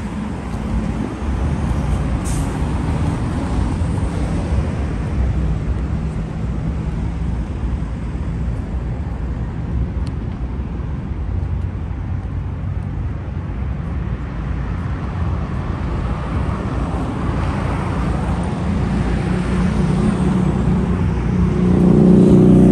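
Steady road traffic of cars and buses on a wide multi-lane avenue. There is a short hiss about two seconds in, and a vehicle engine grows loud as it passes close near the end.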